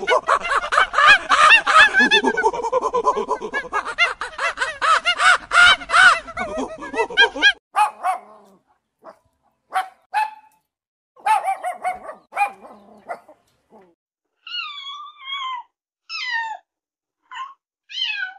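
Animal calls: a dense chorus of many overlapping calls that cuts off abruptly about seven and a half seconds in, then scattered short calls with gaps between, and a few falling, slurred calls near the end.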